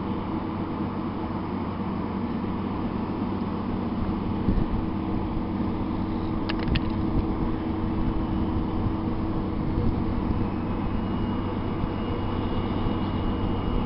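Steady low drone of a passing river barge's diesel engine carried across the water, over wind noise, with two sharp clicks about six and a half seconds in.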